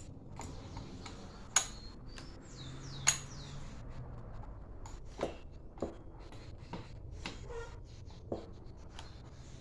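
Scattered small clicks and knocks of tools and metal engine parts being handled while a brushcutter engine is taken apart, with two sharper knocks about a second and a half and three seconds in, and a few brief squeaks just before the second.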